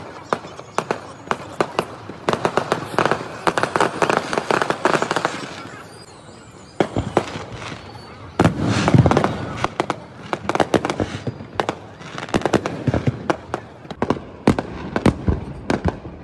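Aerial fireworks going off in quick succession: sharp bangs of bursting shells with crackling between them, a short lull about six seconds in, then a dense, loud cluster of bangs a couple of seconds later.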